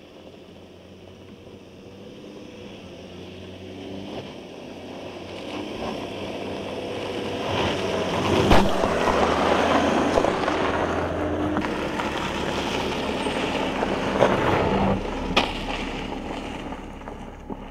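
Audi Q7 SUV driving slowly past on a dirt track. Its engine runs steadily and its tyres crunch over gravel, growing louder as it comes close and fading near the end, with a couple of sharp knocks from stones.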